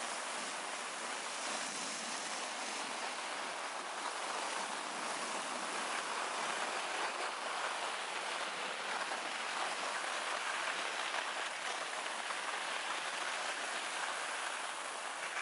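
Steady scraping hiss of snowboard edges sliding over icy, hard-packed snow.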